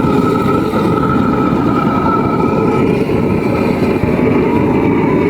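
A motor vehicle's engine running steadily close by, with a faint steady whine above the low engine noise.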